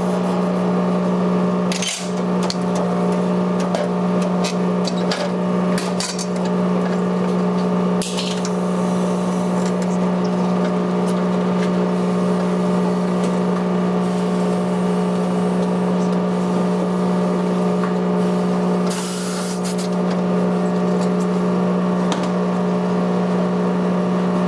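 A steady machine hum at one low pitch with overtones, unchanging throughout. Short hisses of air come about eight seconds in and again near nineteen seconds, with a few sharp clicks and knocks.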